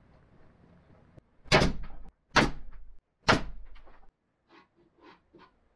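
Three loud sharp wooden knocks about a second apart, then a few faint taps, as a bamboo strip is knocked down into a glued groove in a plywood board.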